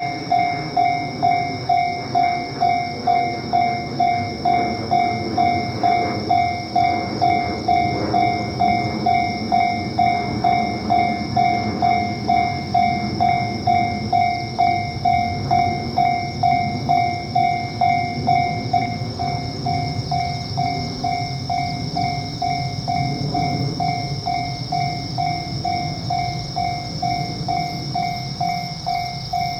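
Japanese level-crossing warning bell ringing its steady "kan kan" at a little under two strokes a second, over the running noise of a passing suburban train on the rails. The train noise grows in the second half while the bell keeps ringing.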